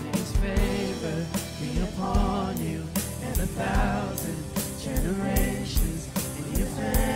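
Contemporary worship band playing a song: sung vocals over guitars, bass and a steady drum beat.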